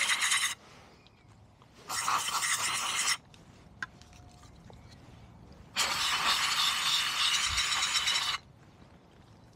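Aerosol can of mass airflow sensor cleaner spraying through its straw nozzle into a removed MAF sensor to clean it, in three bursts of hiss: a short one at the start, another of about a second about two seconds in, and a longer one of about two and a half seconds near the end.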